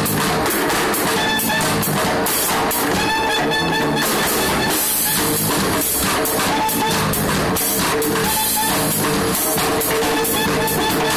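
Live band music with a drum kit and electric guitar keeping a steady groove, mixed with tap dancers' shoes striking wooden tap boards.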